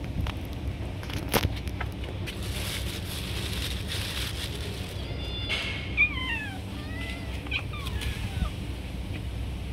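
Cat meowing, a run of short calls that mostly fall in pitch, from about halfway through to near the end. A few sharp clicks come in the first two seconds, over a steady low background rumble.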